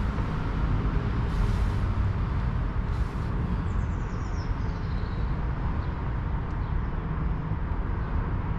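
Steady low rumble of urban background noise, with a bird's short, downward-sliding chirping call about four seconds in.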